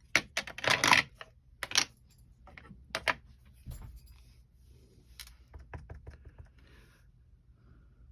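Clicks, light clatter and taps of rubber-stamping supplies being handled: several sharp clicks in the first two seconds, a soft thump near the middle, then quieter scattered taps.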